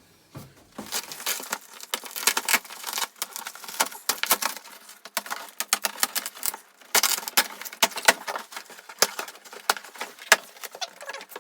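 Packaging being opened and handled: a dense, irregular run of rustling, crackling and small clicks and knocks, starting about a second in.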